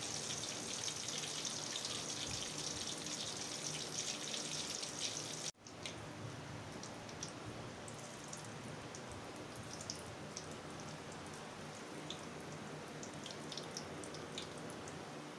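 Hot oil sizzling and crackling in an iron kadhai as battered green chili pakoras deep-fry. About five seconds in, the sound breaks off and comes back quieter: a softer sizzle with scattered pops as fresh gram-flour batter fries.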